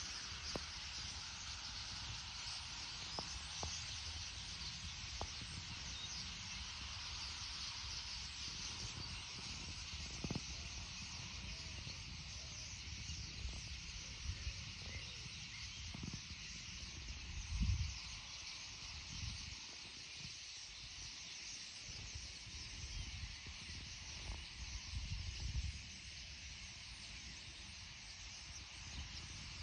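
A large flock of starlings chattering together, their massed calls blending into a steady high-pitched hiss. A few low rumbles come and go, the loudest about two-thirds of the way through.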